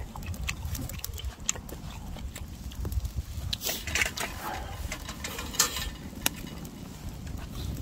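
People eating ramen: slurping and chewing noises with scattered sharp clicks, over a low rumble of wind on the microphone.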